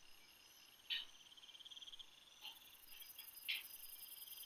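Crickets chirping faintly in quick, even pulses, with a higher insect trill joining a little over two seconds in. Three brief scratches of a pencil on paper, the loudest about a second in.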